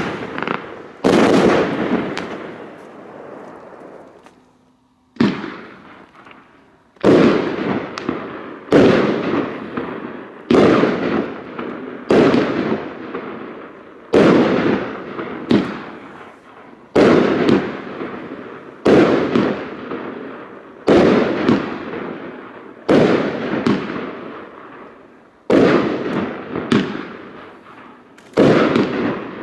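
Funke 'Valentin' 25-shot fireworks battery firing in sequence: sharp bangs about every two seconds, each trailing off over a second or so, with a short lull about four seconds in.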